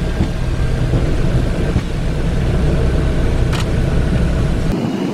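Cessna Citation XLS business jet heard from inside the cockpit during its landing rollout with braking: a steady low rumble of the engines and the wheels on the runway. The rumble cuts off abruptly shortly before the end.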